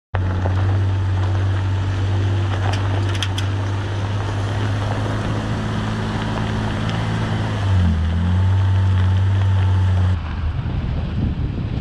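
A vehicle's engine running at a steady pitch, dipping briefly about eight seconds in. About ten seconds in the sound cuts to wind buffeting the microphone.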